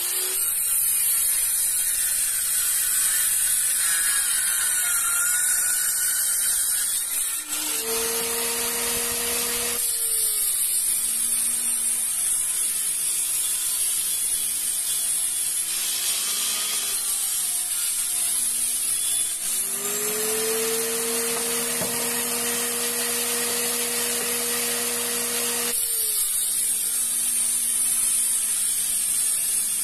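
A handheld electric circular saw cutting 3/4-inch plywood, then a homemade table saw (a circular saw blade sticking up through a wooden table) running. About eight seconds in, the table saw's motor pitch dips and recovers several times as boards are fed through the blade.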